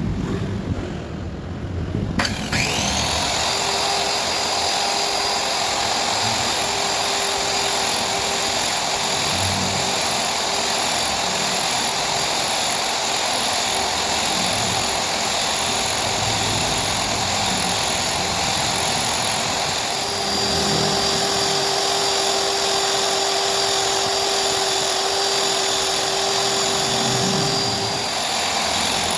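An electric power tool's motor switched on about two seconds in, spinning up quickly and then running steadily at high speed with a constant whine.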